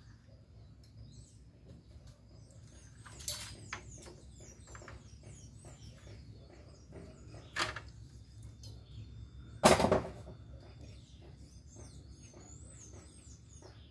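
Small birds chirping and twittering, with scattered light knocks and clicks, two sharper knocks, and one loud heavy thump about ten seconds in.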